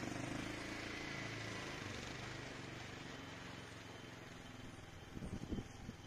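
A distant motor vehicle's engine drones steadily and slowly fades away, followed by a few low thuds about five seconds in.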